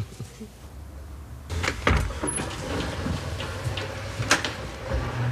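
Several knocks and thuds over a low steady rumble.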